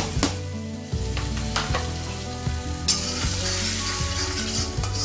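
Onion, chilli-ginger-garlic paste, turmeric and salt sizzling in hot oil in a kadhai while a spatula stirs and scrapes the pan: the masala being roasted. The sizzle grows louder about three seconds in.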